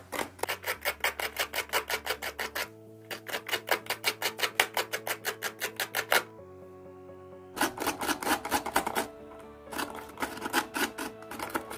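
Unripe papaya scraped on a chirava, the Kerala coconut scraper: quick, rhythmic rasping strokes about five a second, stopping briefly twice, over background music.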